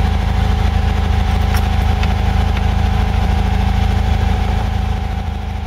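MGB's four-cylinder B-series engine on twin SU carburettors idling steadily as it warms up, its mixture not yet set and judged a bit lean by the owner. The sound fades near the end.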